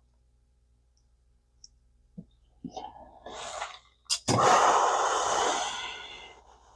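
A few faint clicks of small reel parts being handled, then a sharp click and a long breath out, a sigh lasting about two seconds and fading away.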